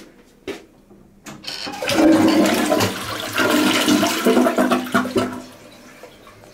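Toilet flushing: a few clicks, then water rushing through the bowl for about four seconds before dying away.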